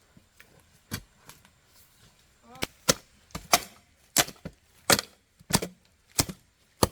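Chopping blows of a hand tool striking into wood and earth: a few scattered knocks, then from about two and a half seconds in a steady run of sharp strikes, roughly three every two seconds.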